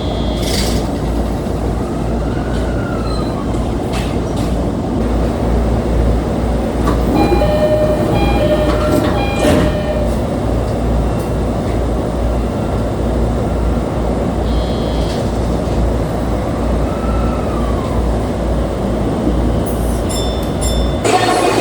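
Sotetsu 10000 series electric commuter train running, a steady heavy low rumble throughout. A few short steady tones sound about eight to ten seconds in, and a string of high ticks comes near the end.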